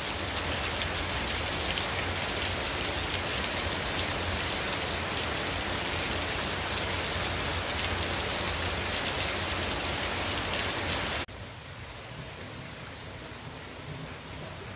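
Steady rain falling and pattering on surfaces in a yard, an even hiss. About eleven seconds in it drops suddenly to a quieter, softer rain.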